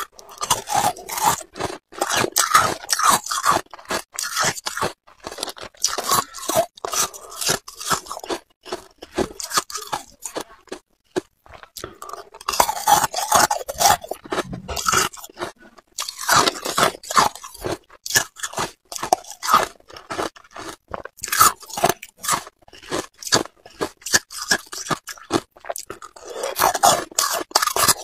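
Pink ice pieces being bitten and chewed: a dense run of sharp crunching and cracking, broken by a few short pauses.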